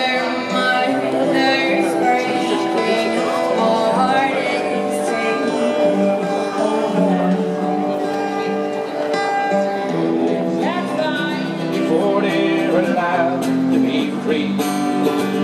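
Acoustic music played on guitar and other plucked strings.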